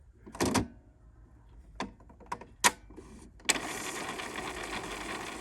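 Epson ET-2650 inkjet printer running its head-cleaning cycle: a few sharp clicks and a short rattle, then about three and a half seconds in a steady mechanical whirr starts as the machine cleans its print head.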